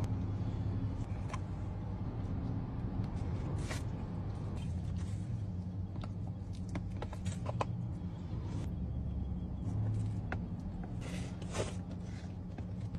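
Steady low hum inside a car's cabin, with scattered clicks and short rustles as hands pick rice and chicken off a metal serving platter and sweep it clean.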